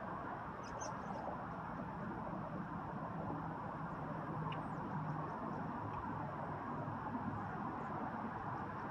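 Steady outdoor background rumble and hiss with a faint low hum, and a few faint, short high chirps, most of them about a second in.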